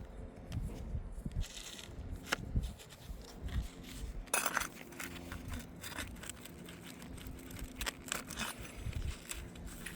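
Asphalt roof shingles being handled and lifted, with scattered clicks and short scraping, crackling rasps; the longest rasp comes about halfway through.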